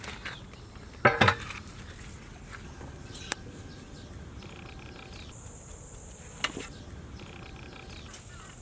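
Two loud metal clanks close together about a second in, with a brief ring, followed by a sharp click and a smaller knock later: large metal cooking vessels or lids being handled during the dum cooking of a biryani.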